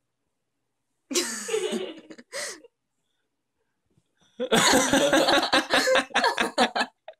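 A person laughing off camera: a short giggle about a second in, then a longer run of quick, pulsing laughter in the second half.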